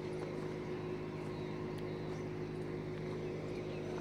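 Steady low hum with a faint hiss: room background noise.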